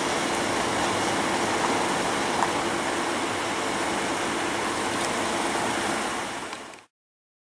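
Historic Lisbon electric tram running on its rails: a steady rolling noise with a faint hum and a few light clicks, fading out and cutting to silence near the end.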